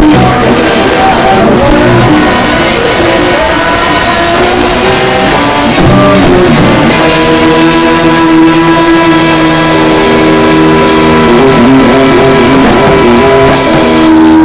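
Loud rock music with guitar and drums, the notes held steady through much of the second half.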